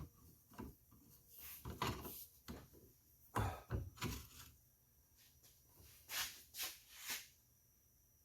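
Faint knocks and clunks, about eight of them spread over the first seven seconds and then stopping, from the freshly bent rack pipe being handled.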